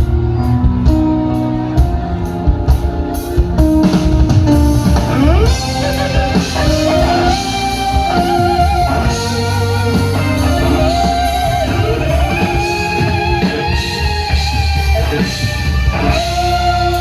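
Live rock band playing an instrumental intro: a lead guitar melody with a bend upward about five seconds in and wavering vibrato on its long held notes, over bass and drums.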